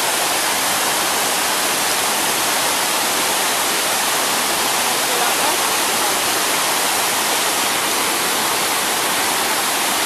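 Steady rush of a small waterfall: a mountain stream cascading over rocks into a pool.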